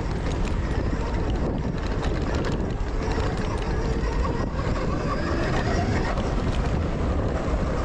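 Zero FX electric motorcycle riding over rough dirt trail: steady wind buffeting on the microphone and rumble from the tyres and ground, with a faint motor whine that rises in pitch about five seconds in.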